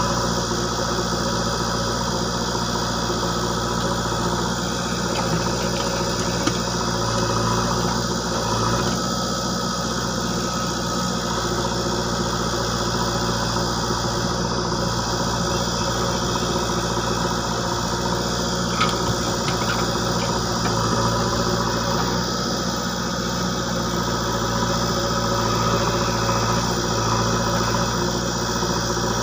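Diesel engine of a JCB 3DX backhoe loader idling steadily.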